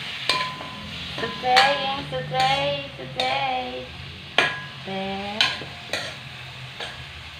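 Chicken with onion, garlic and ginger sizzling in a frying pan while a spatula stirs it, with a few sharp knocks and scrapes of the spatula against the pan. A few brief pitched sounds stand out, the loudest about two seconds in.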